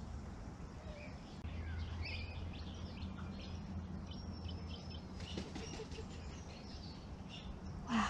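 Small wetland birds calling, a scatter of short high chirps and a thin whistle, over a steady low hum in the background.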